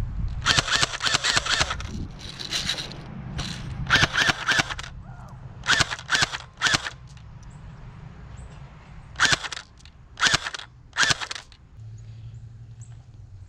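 Airsoft guns firing in rapid bursts of shots: about eight bursts, the longer ones in the first half, the last three short.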